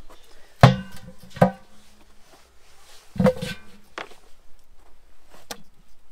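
Pieces of bony goat meat set down into a large enamel pot, knocking against it so the enamel pot rings briefly after each one: three loud knocks in the first half, then two lighter ones.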